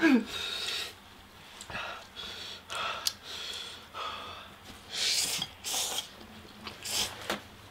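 Sharp breaths, sniffs and noodle slurping from people eating extremely spicy instant noodles, a string of short breathy bursts with the loudest two slurps near the end.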